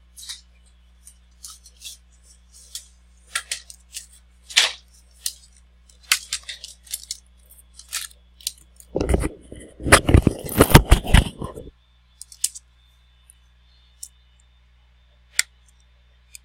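Small parts and packaging being handled: scattered clicks and light clatter, then a loud burst of rustling and clattering about nine seconds in that lasts under three seconds, followed by a few single clicks. A steady low hum runs underneath.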